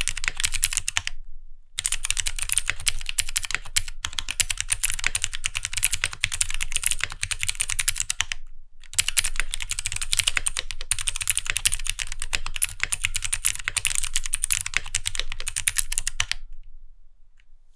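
Fast, continuous typing on a Keychron Q1 mechanical keyboard fitted with a mix of 82 different switch types (linear, tactile and clicky) under clear ABS keycaps, so neighbouring keys click with uneven tones. The typing pauses briefly twice and stops near the end.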